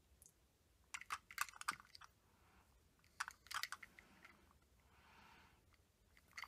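Faint light clicks and taps of Mattel die-cast metal toy trucks being handled and turned in the hands, knocking against each other and against fingers, in two short clusters: one about a second in and another about three seconds in.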